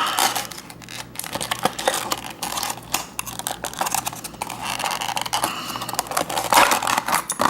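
Stiff plastic retail packaging of a padlock being pried and torn open by hand, crackling and clicking irregularly.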